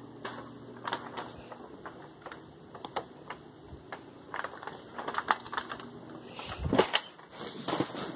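Scattered clicks and knocks from handling as a hand-held camera is carried and swung through rooms, getting busier and louder in the second half, with a heavier thump a little before the end.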